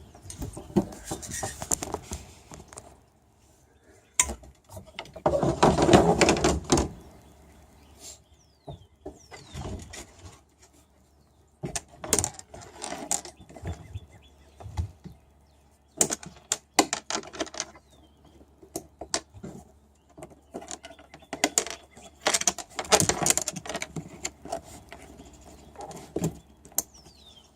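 Gear being handled: irregular knocks, clicks and clinks with bursts of rustling, the loudest rustling about five seconds in and again near the end.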